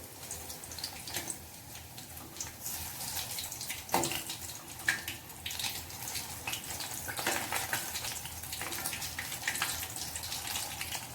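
Marinated chicken pieces deep-frying in hot oil: a steady sizzle full of crackles and pops. There is a sharp clink about four seconds in.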